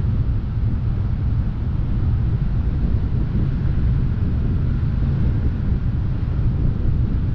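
Steady, loud wind buffeting a GoPro MAX camera's microphone, a low rumbling rush with no let-up.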